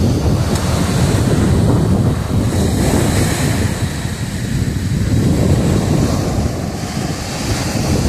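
Black Sea surf breaking and washing up a sandy beach among rocks, with wind buffeting the microphone throughout.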